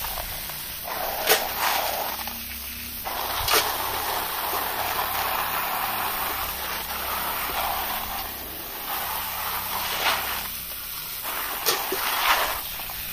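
Hose water spraying onto a plastic basket heaped with freshwater pond snails while a hand rubs through them, the shells rattling against each other, with a few sharp clicks. The snails are being washed clean of algae.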